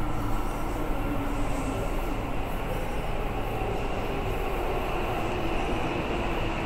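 An electric commuter train coming into the underground station through the tunnel, a steady rumbling wash of rail noise with no clear breaks.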